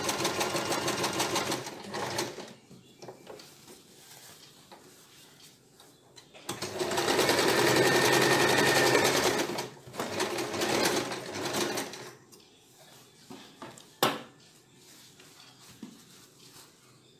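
Electric sewing machine stitching blouse fabric in runs. A fast, steady run stops about two seconds in, a second longer run starts about six and a half seconds in and lasts about three seconds, and a few shorter bursts follow. A single sharp click comes near the end.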